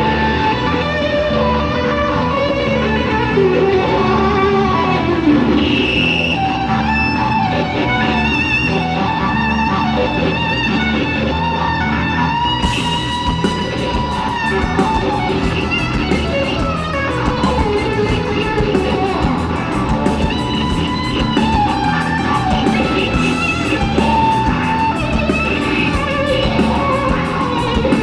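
A live rock band plays an instrumental passage, the electric guitar lines most prominent. About halfway in, a fast, steady cymbal beat comes in on the drums.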